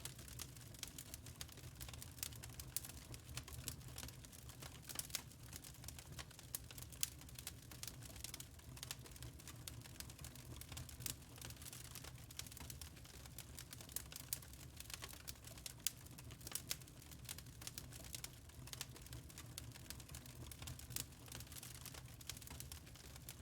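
Wood fire crackling in a fireplace: irregular small pops and snaps from burning logs over a low steady rumble.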